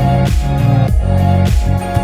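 Background music: an electronic track with heavy bass and a steady beat of about two strokes a second.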